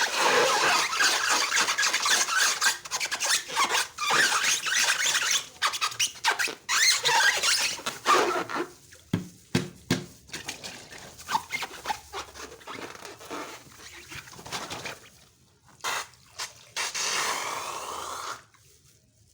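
Slime being worked by hand: wet, sticky crackling and squelching with many small pops, dense at first and then sparser. A short steady hiss comes about seventeen seconds in.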